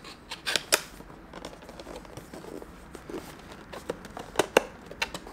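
Cardboard camera box being handled and opened by hand, its seal tab picked at: scattered sharp clicks and taps, a couple about half a second in and several more near the end, over light scratching and rustling.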